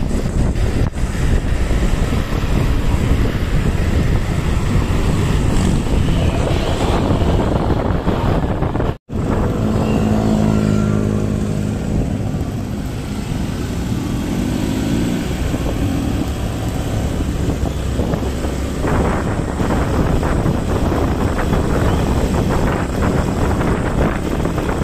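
Street traffic heard from a moving vehicle: a steady rush of road and wind noise on the microphone, with motorcycle and car engines going by. The sound cuts out for an instant about nine seconds in, and an engine hum stands out for a few seconds after.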